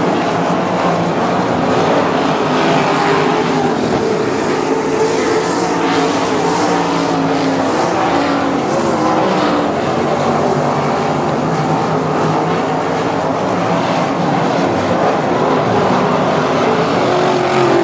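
A field of 305 winged sprint cars racing, their V8 engines revving up and easing off as they run around the track, with several engines heard at once.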